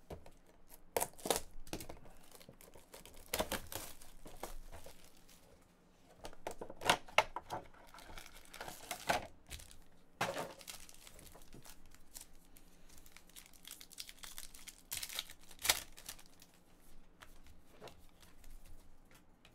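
A trading card pack's wrapper being torn open and crinkled by hand, in irregular bursts of crackling. The cards are handled and slid apart near the end.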